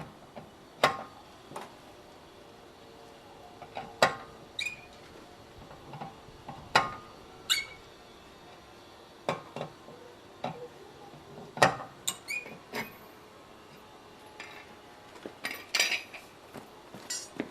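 Scattered metallic clinks and knocks, about a dozen spaced a second or more apart, some ringing briefly: metal tools and parts handled during a car tyre change.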